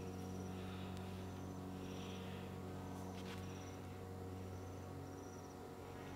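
A cricket chirping faintly in short, high, trilled chirps about once a second, over a low steady hum.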